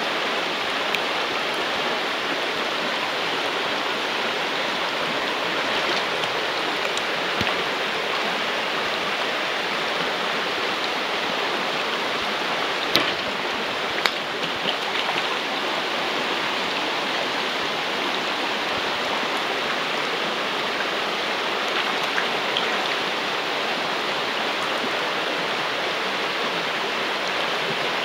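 Mountain stream rushing steadily over rocks and a rock ledge. Two brief clicks come about halfway through.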